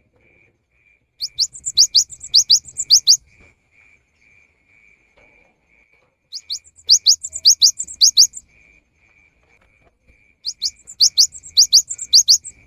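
Cinereous tit (gelatik batu) singing three bursts of its song, each a quick run of about eight to ten sharp, rising whistled notes lasting about two seconds. A faint regular ticking sounds about twice a second underneath.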